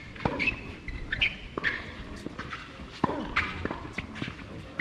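A handful of sharp, separate knocks on a hard tennis court, the sound of a tennis ball being bounced and players stepping between points.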